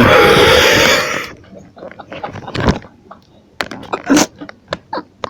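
The end of a long, loud human burp, which cuts off about a second in, followed by a string of short, quieter sounds from the burper.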